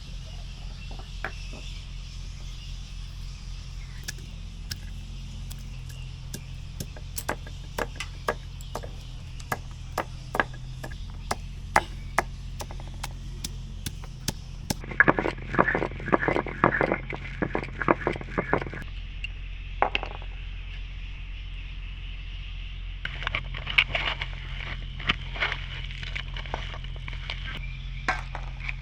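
Pumpkin being chopped with a knife against wood: a run of sharp, irregular knocks, with faster clusters of strokes about halfway through and again near the end, over a steady low hum.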